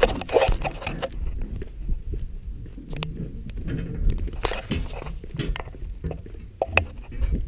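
A bicycle rolling over cobbled paving, with irregular knocks and rattles and a steady rumble of wind on the camera microphone.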